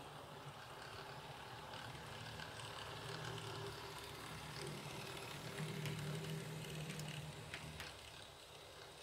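Mehano H0 scale model train running on sectional track: a low motor hum and wheels rolling on the rails, growing louder as it passes close and then fading. A few sharp clicks near the end.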